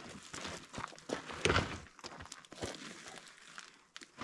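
Footsteps and scattered knocks and shuffles of people handling a heavy load, with the loudest knock about a second and a half in.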